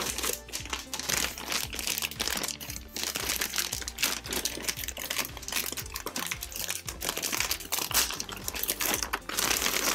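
Clear plastic bags crinkling and rustling continuously as hands rummage through them and pull out plastic toy parts, with many small sharp crackles. Faint background music underneath.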